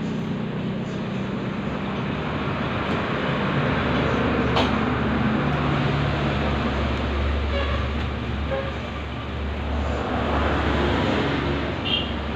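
Low rumble of passing road traffic, swelling for several seconds and then again near the end, with a single sharp knock about four and a half seconds in.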